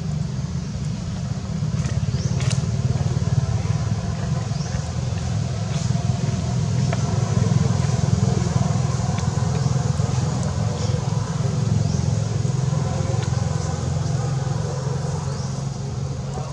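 Steady low rumble, with a few faint, short, high rising chirps over it.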